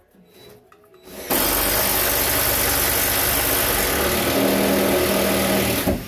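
An electric power tool's motor runs loud and steady for about four and a half seconds. It starts abruptly about a second in and cuts off just before the end, and its tone shifts a little near the end.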